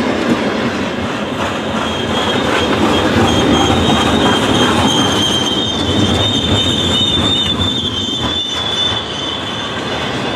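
Loaded freight cars (tank cars and boxcars) rolling past at close range, their steel wheels running on the rails with a continuous rumble and clatter. A high-pitched steady wheel squeal comes in about two seconds in, is strongest midway, and fades out near the end.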